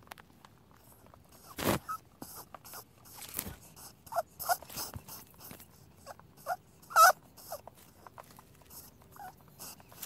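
Rabbits eating vegetables and fruit from a feeding tray: scattered crunching and gnawing clicks, with a few short squeaky chirps, the loudest about seven seconds in.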